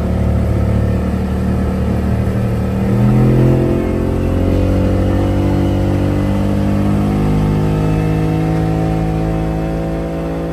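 Outboard motor on a small boat accelerating away. Its pitch rises about three seconds in, then it runs steady at speed and eases off slightly near the end.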